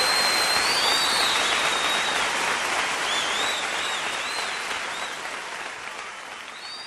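Concert audience applauding after a big-band number, with a few whistles, fading out steadily.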